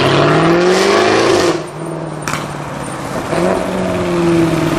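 Jaguar F-Type R's supercharged V8 accelerating, its pitch rising for about a second and a half before the driver lifts off, with a single sharp exhaust pop a moment later; the engine then picks up again and holds a steady note.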